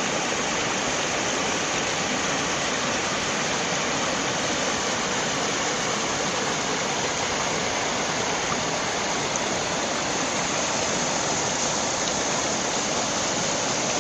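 A swollen, muddy flood torrent rushing in one steady, even wash of noise.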